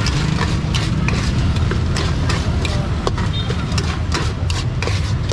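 Metal spoon clinking and scraping against a metal bowl as corn kernels are stirred, in quick irregular strokes, over a steady low rumble of street traffic.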